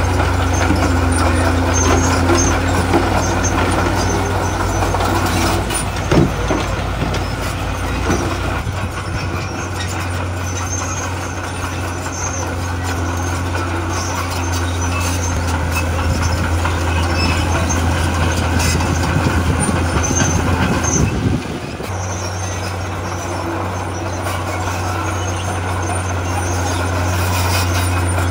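Heavy diesel earthmoving machinery running steadily with a deep engine hum. There is a brief knock about six seconds in, and the hum drops out for about a second roughly three-quarters of the way through before coming back.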